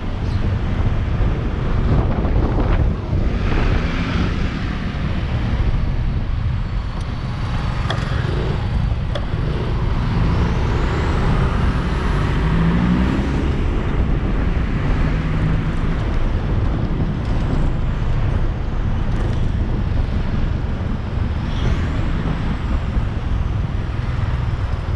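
Riding on a Yamaha Aerox motor scooter through town traffic: steady wind rumble on the microphone over the scooter's engine and passing vehicles, with a rising engine note about twelve seconds in.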